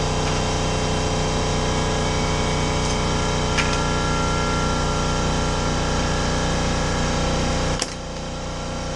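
Air compressor running steadily, with a sharp click near the end after which it runs quieter.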